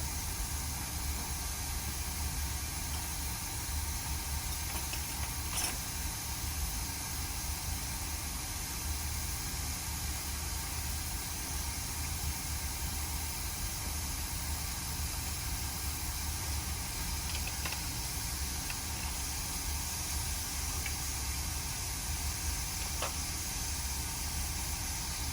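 Hot air rework station blowing a steady hiss of hot air over a logic board to desolder corroded chips, with a low hum under it and a few faint clicks.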